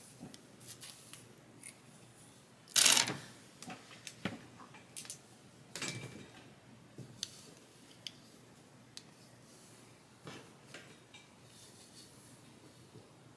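Scattered small clicks and rustles from handling a corded electric hot comb while combing it through the wig's hair, with one louder scuff about three seconds in and a smaller one near six seconds.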